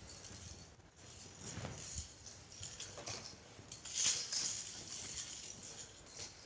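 Nine-section whip's steel links rattling and jingling as the chain is swung and caught, in a string of irregular metallic clinks with the loudest jangle about four seconds in.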